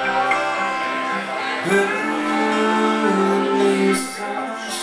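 Live band music: acoustic guitar strumming with an electric guitar, in an instrumental passage between verses, with long held notes that slide into pitch about two seconds in.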